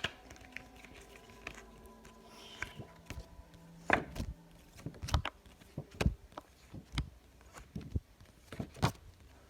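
Phonics flash cards handled in a silent run-through: short soft taps and flicks, about one a second, over a faint steady hum.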